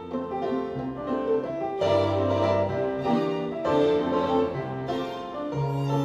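Piano music with a bowed string instrument playing along, reproduced from a vinyl record on a used Victor turntable and heard through floor-standing hi-fi speakers in the room.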